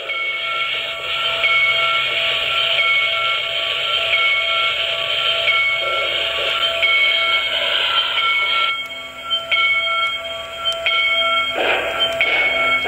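Sound system of an MTH Premier PRR K-4 O-scale model steam locomotive: a multi-tone steam whistle held over steady steam hiss as the engine runs with its freight train.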